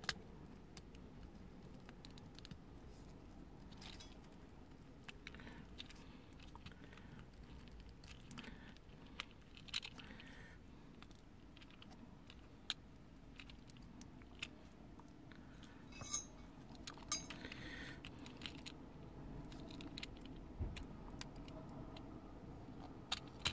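Scattered small metallic clicks and taps from handling the opened mechanism of an Alpine 5313 car cassette deck, a few sharper ticks standing out, over a faint low steady hum.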